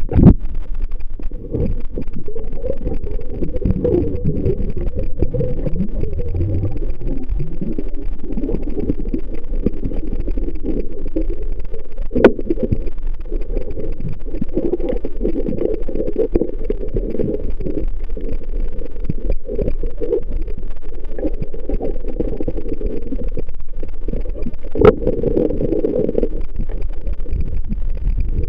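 Muffled underwater rumble and sloshing from a camera in a waterproof housing moving through the water, with small clicks of handling throughout. Two sharp knocks, about twelve and twenty-five seconds in.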